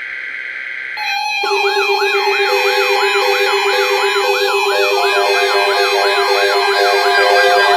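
A bank of NOAA weather radios going off together on a new alert: a brief buzzy data burst from the alert header, then about a second in many alarms start at once, a siren-like warble rising and falling about three times a second over steady tones and on-off beeps.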